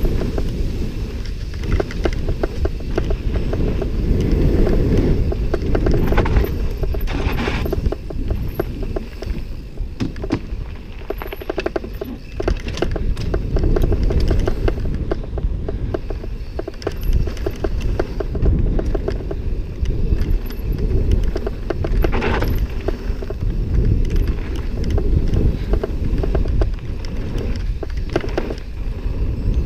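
Mountain bike running fast downhill over a dirt and stone trail: tyres rolling over the ground and the bike rattling and clattering over bumps, with constant wind rumble on the microphone.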